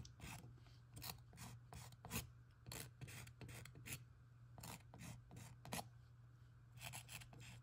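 Felt-tip marker scratching on a small textured canvas in short, quick strokes, drawing little star shapes. Faint, irregular scratches, about two a second.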